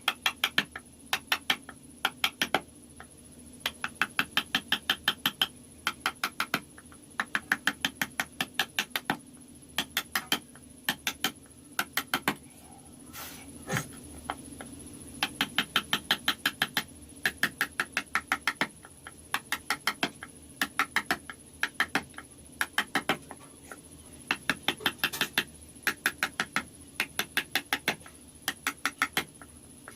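Carving chisel being tapped with a mallet into wood: quick runs of sharp taps, about six a second, in short bursts with brief pauses between. One heavier knock about thirteen seconds in.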